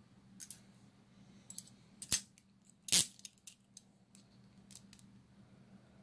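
Steel TCH 822 chain-link handcuffs being handled: a series of sharp metal clicks and clinks from the cuffs and chain, the two loudest about two and three seconds in.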